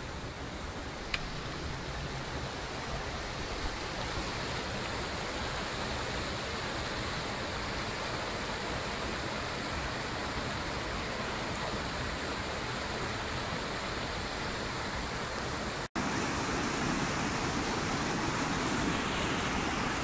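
Steady rush of a rocky mountain river pouring over boulders in a small cascade. It cuts out for an instant near the end and comes back a little louder.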